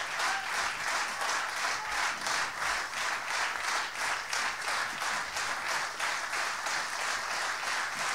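A concert audience applauding after the music stops, clapping together in a steady rhythm of about three claps a second.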